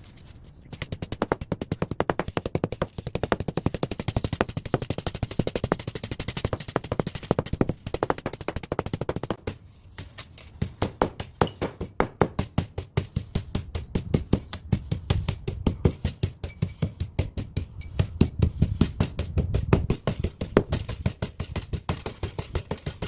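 Rapid, repeated metal knocks on an air-conditioner radiator, several a second, as it is struck to work the copper tubing out of the aluminium fins. The strikes go on with brief breaks around a third and near halfway through.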